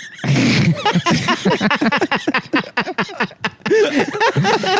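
Men laughing hard in rapid bursts after a joke, mixed with a little unclear speech.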